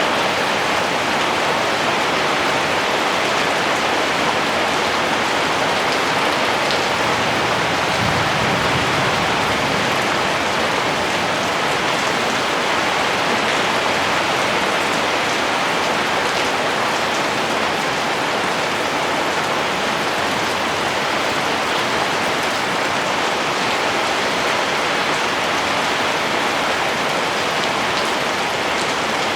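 Heavy rain falling steadily, a continuous, even hiss of rainfall with no let-up.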